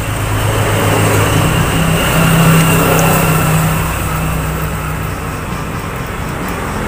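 A motor vehicle engine running, rising in pitch and loudness over the first couple of seconds, then slowly easing off.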